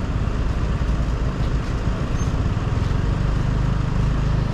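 Motorbike running steadily on the road, a continuous low rumble with no break.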